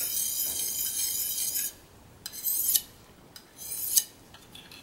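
Carbon-steel blade of a Russell Green River Works knife rasping along a fine DMT diamond hone, honing a burr off the edge. A steady run of quick strokes for about the first second and a half, then a few short separate strokes.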